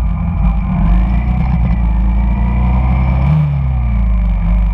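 Honda Shadow cruiser's V-twin engine running while riding in traffic, its pitch climbing briefly about three seconds in and then falling away.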